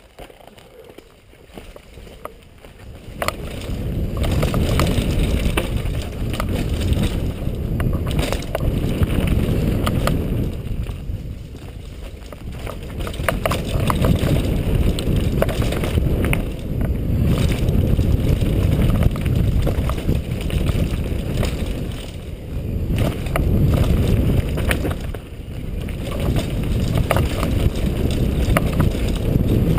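Wind rushing over the microphone of a rider-worn camera during a fast downhill mountain-bike descent on a dirt forest trail, with rumble and clattering from the bike over rough ground. It starts quiet and grows loud about three seconds in, easing off briefly a few times.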